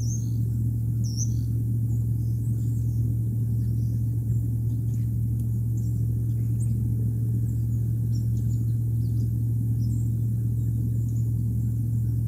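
A steady low hum with faint, short, high bird chirps scattered through it, two of them a little clearer near the start and about a second in.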